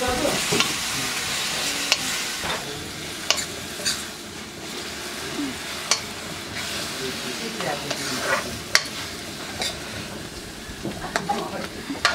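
Instant noodles sizzling in a hot wok as they are stir-fried, a metal ladle scraping and clinking against the pan again and again. The sizzle is loudest in the first few seconds.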